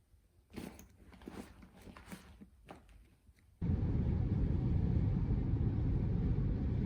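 A few soft clicks and rustles, then an abrupt cut to the steady low rumble of a car driving on the road.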